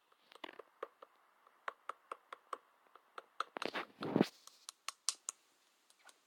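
Toy slime being pressed and squeezed by hand: a string of small sharp clicks and crackling pops, with a fuller squish about three and a half seconds in.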